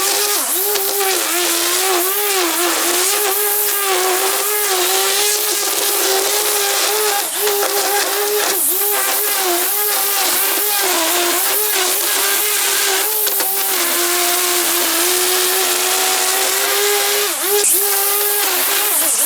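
Small petrol engine of a garden power tool running at high speed, its pitch dipping and recovering again and again as it takes load while cutting.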